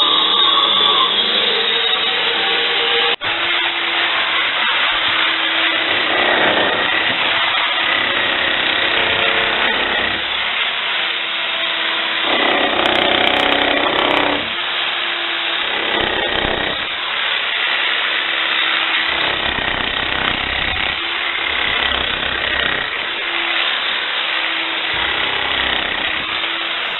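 Power tool cutting grooves into a masonry wall to take pipes, running continuously with a steady high whine and a load that rises and falls every few seconds.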